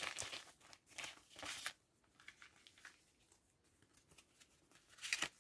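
Plastic bag crinkling as it is opened and handled, in bursts during the first second and a half and again near the end, with a nearly quiet stretch between.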